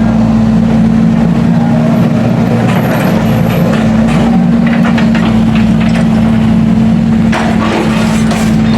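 Heavy road-works machinery engine running steadily at constant speed, with a few scattered knocks near the end.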